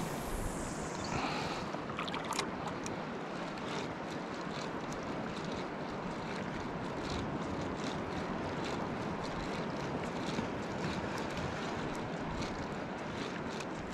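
Small waves lapping and wind over shallow sea water: a steady low hiss, with faint scattered clicks.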